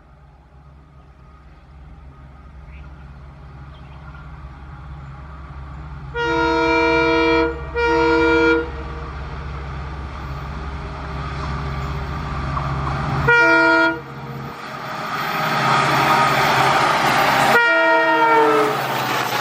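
EMD WDP4D diesel locomotive approaching at speed, its rumble growing steadily louder. Its dual-tone air horn sounds two long blasts about six seconds in and a short one around thirteen seconds. The train then rushes past loudly, with a last horn blast that drops in pitch as it goes by.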